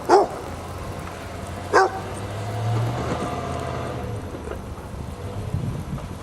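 Basset hound barking twice, a sharp bark at the start and another about a second and a half later.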